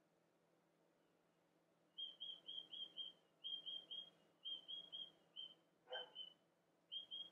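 A bird chirping faintly: from about two seconds in, quick runs of short high chirps in groups of two to four, with a faint knock about six seconds in.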